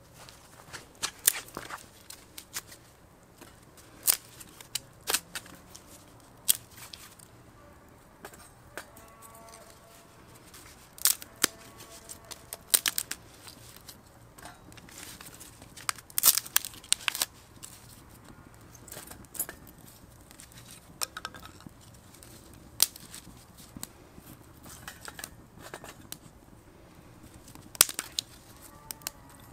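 Split kindling sticks clacking against a small folding steel box stove as they are dropped in, with the wood fire inside crackling: irregular sharp clicks and snaps every second or few.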